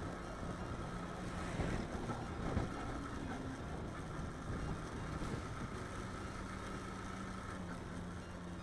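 Motorcycle engine running steadily at cruising speed, with a constant hum under road and wind noise.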